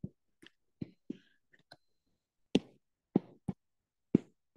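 Stylus tapping and writing on a tablet's glass screen: about ten short, sharp taps at irregular spacing, the loudest a little past halfway.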